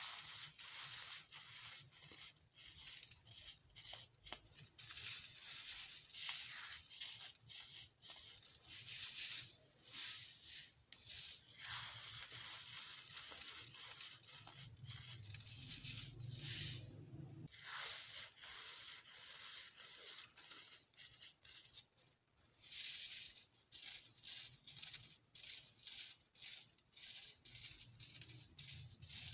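Dried, caked baking soda being crushed: a dense, irregular run of crisp crunches and crumbles, with several louder bursts of crunching spread through.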